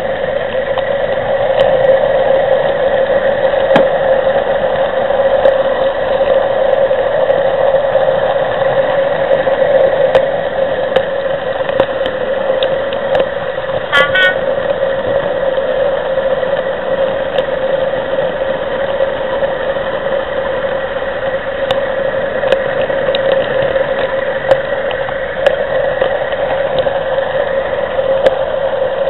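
OO gauge model train running along the track, heard from a camera riding on a flat wagon: a steady running hum with scattered light clicks.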